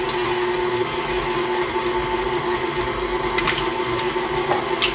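KitchenAid Classic stand mixer running steadily, its motor humming as the flat beater turns through thick batter, with two light clicks in the second half.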